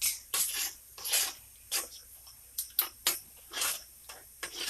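A spoon stirring chopped onion and garlic through melted butter in a pot, a string of short uneven scraping swishes.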